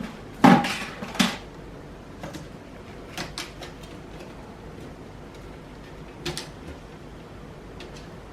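Knocks and light clicks from handling laptop parts and tools while reassembling an Acer Aspire E1-570: two sharp knocks near the start, the first with a short rattle, then a few scattered small clicks.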